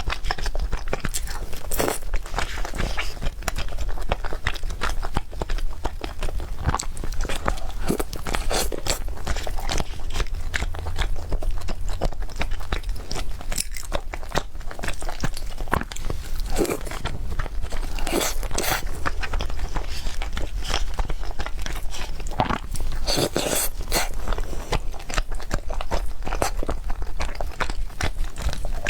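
A person chewing and biting cake close to the microphone, a dense run of small wet clicks and crunches.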